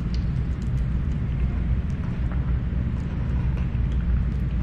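A steady low background rumble, with faint short clicks of crispy fried chicken wings being chewed and pulled apart.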